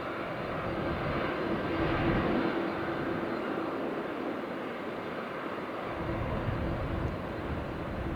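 Airbus A330-200 twin-engine jet at takeoff power: a steady rush of engine noise with a held hum. Deeper low rumble builds from about six seconds in.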